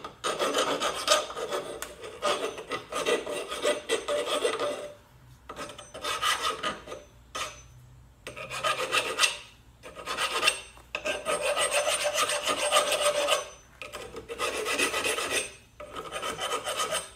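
Hand file scraping back and forth on the freshly cut end of a steel bar, taking off the sharp edges. It comes in runs of quick strokes, about seven of them, broken by short pauses.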